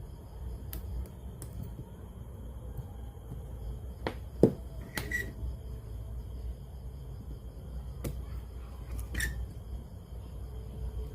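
Scattered sharp clicks and taps, about eight of them at irregular intervals, the loudest about four and a half seconds in, from hands and tools working on a radio-cassette player, over a steady low hum.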